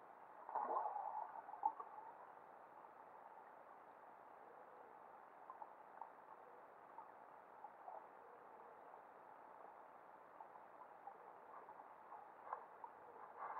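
Faint underwater ambience on a sandy seabed: a low hiss with scattered faint clicks. About half a second in comes a brief louder burst that falls in pitch, followed by a sharp click.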